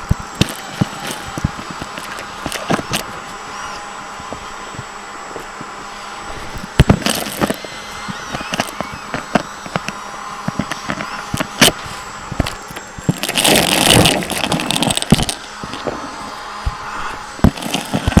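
Vacuum cleaner running with a steady motor whine, while it is pushed quickly over the floor: frequent clicks, rattles and scrapes, and a louder rushing hiss for about two seconds past the middle.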